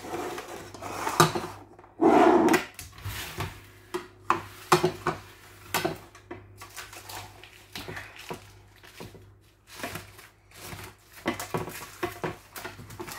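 Ready-rolled pizza dough on its baking paper being unrolled and smoothed onto a metal baking tray: paper rustling, with scattered clicks and knocks against the tray and a louder rustling burst about two seconds in.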